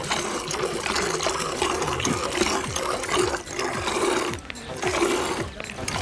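Goat being milked by hand: streams of milk squirting into a plastic bucket that already holds milk, in a quick, steady rhythm.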